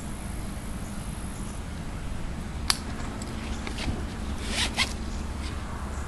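Soft-sided fabric pet crate being handled: a single click about two and a half seconds in, then a short zipper rasp about three-quarters of the way through.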